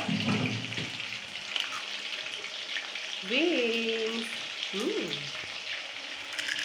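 Chicken wings deep-frying in hot oil in a wok, a steady sizzle.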